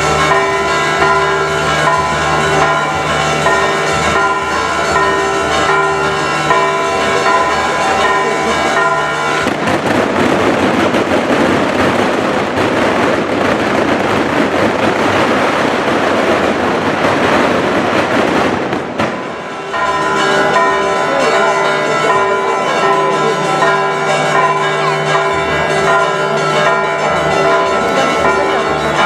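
Church bells ringing in a rapid peal, then about nine seconds in a dense barrage of crackling fireworks drowns them for some ten seconds, before the bells come through again.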